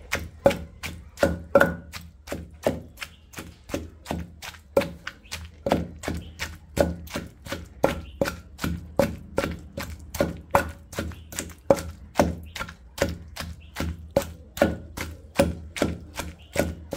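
Wooden pestle pounding cooked ivy gourds in a stone mortar (okhli): steady, even strikes at about three a second, crushing them into a coarse chutney.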